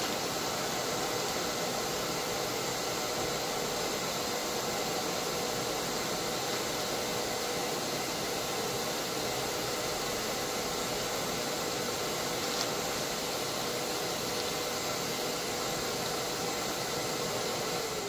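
Vacuum cleaner running steadily, a rush of air with a faint steady whine, its nozzle in a sawdust bag sucking the air out to compact the dust.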